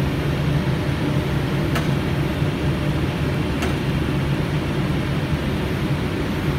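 Steady flight-deck noise of a Boeing 777 on final approach: a constant rush of air with a low hum underneath, and two faint ticks a couple of seconds apart.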